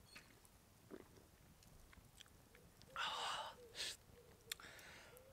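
A man drinking canned beer, with faint swallows and then a loud breathy exhale about three seconds in, after a long swig, followed by a second, shorter one.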